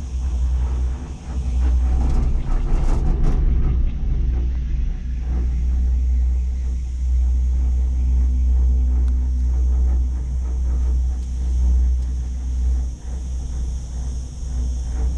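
Steady deep rumble inside a moving gondola lift cabin as it rides the cable up the mountain. It swells for a couple of seconds about two seconds in.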